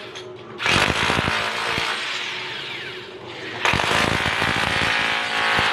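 Handheld electric chipping hammer breaking up concrete to free a gate's pillow block set in cement. It runs in two bursts of rapid hammering, one starting about half a second in and another starting past halfway, which cuts off abruptly near the end.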